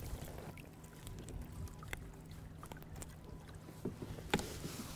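Quiet water and handling sounds at the side of a kayak as a small striped bass is unhooked: faint splashing and lapping with a few light clicks, and one sharper knock a little past four seconds in.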